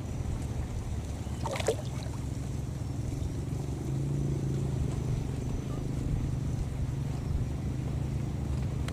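A steady low motor-like drone, a little louder from about four seconds in, with one short high squeak about one and a half seconds in.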